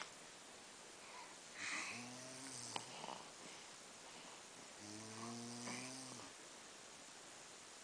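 A person snoring in sleep: two snores about three seconds apart, each a low buzzing tone. A short sharp click at the very start is the loudest sound.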